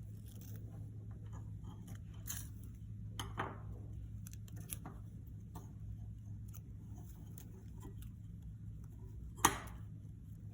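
Hands tying ribbon onto a wooden dowel rod: faint rustling and handling with scattered small clicks, a sharper click about three seconds in and a sharp tap near the end, over a steady low hum.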